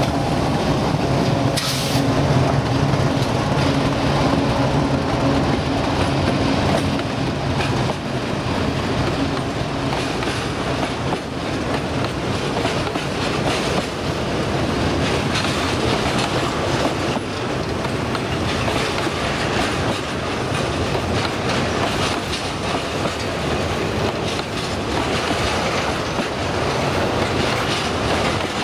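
Diesel freight locomotives running as they pass close by, with a steady low engine drone that fades after about ten seconds. It gives way to the wheels of a long string of tank cars rolling over the rails with a clickety-clack.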